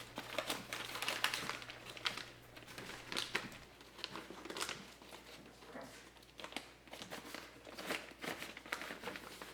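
Plastic door water shield crinkling and crackling as it is handled and pressed back onto the inner door, with irregular small ticks throughout.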